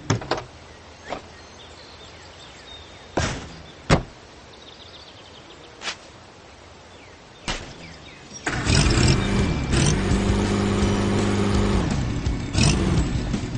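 Cartoon soundtrack: a low steady background broken by a few sharp knock-like sound effects, then louder background music starting about eight and a half seconds in.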